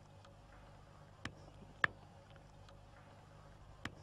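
A harmonica being handled in the hands, giving three faint sharp clicks over a low steady hum; it is not being played.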